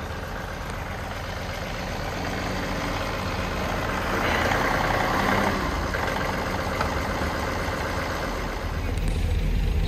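John Deere compact tractor's diesel engine running as its front loader lifts a load, growing louder about four seconds in.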